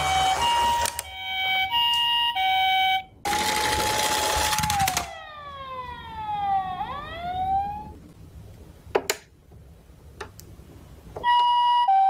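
Toy ambulances' electronic sirens: a two-tone siren alternating between a high and a low note, then a steady tone that slides down into falling and rising wails. A sharp click comes about nine seconds in, and the two-tone siren starts again near the end.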